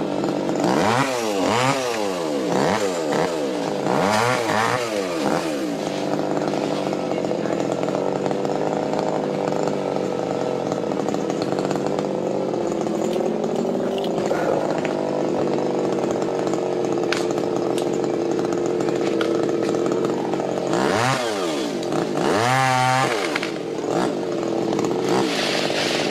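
Two-stroke chainsaw running, revved up and down several times in quick succession over the first few seconds and again near the end, held at a steady speed in between.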